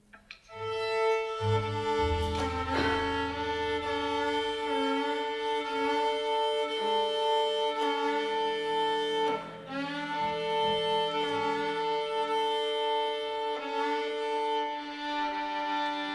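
Contemporary chamber sextet of flute, clarinet, violin, double bass, piano and percussion playing a chord of long sustained notes, bowed strings to the fore. A low note enters about two seconds in and drops out after a couple of seconds, and the chord breaks off briefly a little past halfway before resuming.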